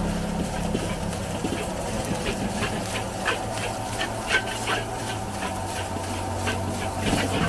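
Long metal spatula scraping and clinking irregularly against a wok while stir-frying fried rice, over a steady sizzling hiss and a low hum.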